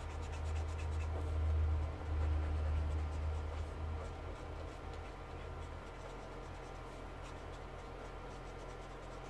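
Brush-tip marker rubbing in soft, quick strokes on kraft card while colouring in. A low rumble under it is loudest for the first few seconds, then fades, over a steady faint hum.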